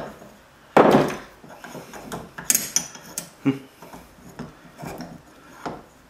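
A loud knock about a second in, then scattered light metallic clinks and taps as a steel punch is worked around inside a cast mower-deck spindle housing held in a bench vise, to get behind the worn top bearing and knock it out.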